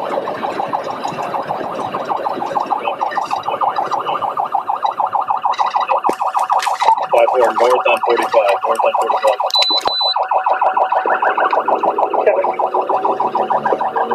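Police cruiser siren sounding in a fast, rapidly pulsing warble during a pursuit, with a few sharp clicks about halfway through.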